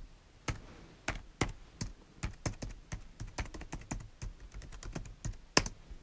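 Typing on a computer keyboard: irregular keystrokes, a few a second, some of them louder than the rest.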